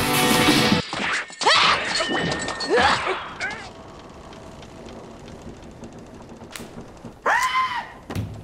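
Rock band music that stops abruptly about a second in. Then a cartoon soundtrack: a few short vocal sounds that swoop up and down in pitch, with thumps, a stretch of quiet background, and a brief cry that rises and falls near the end.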